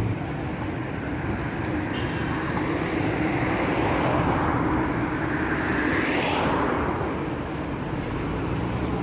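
Street traffic noise, a car passing close by and swelling to its loudest about six seconds in before fading.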